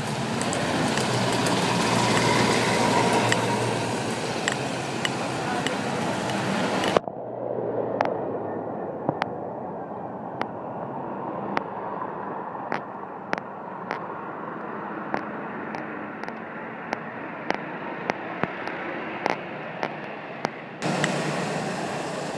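A necklace pendant tapping against a phone held to the chest, with sharp, irregular light taps about one to two a second. For the first seven seconds a loud hiss of rain on the microphone covers the taps. The hiss cuts off suddenly about seven seconds in and comes back near the end.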